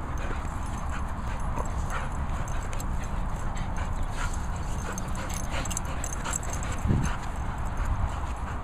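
Steady low rumbling noise on the microphone with faint scattered clicks, and a short vocal sound from a small chihuahua-pug cross dog about seven seconds in.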